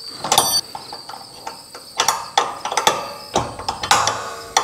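Ratchet wrench clicking in short, uneven strokes as it loosens the bolts on a garage door's top roller bracket, with a brief metallic clink near the start.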